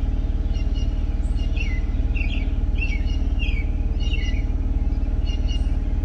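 Steady low hum of an idling vehicle engine, with a small bird chirping short, repeated calls over it.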